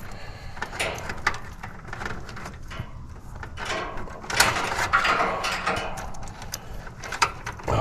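Hand work on the wiring inside a heat pump's outdoor unit: scattered clicks and the rustle of wires and a strap being handled, with a longer, louder rustle about four seconds in.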